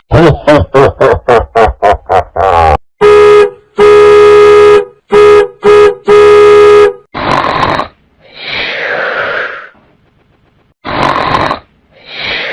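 A string of short comedy sound effects played one after another. First comes a fast run of warbling pulses, then a loud, buzzy tone sounded in about five blasts, then several rough, noisy bursts with pauses between them.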